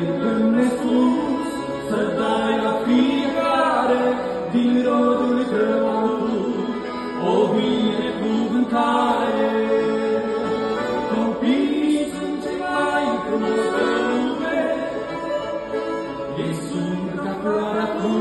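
Two men singing a hymn together, accompanied by a piano accordion.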